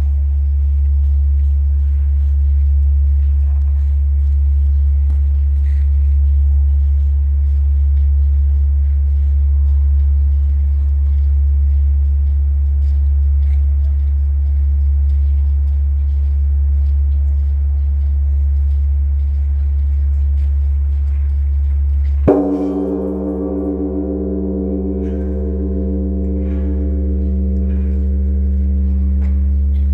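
Large Korean bronze temple bell (beomjong) humming deep and steady as its last stroke dies away. About 22 seconds in it is struck again: a sudden stroke that rings on in many tones above the low hum.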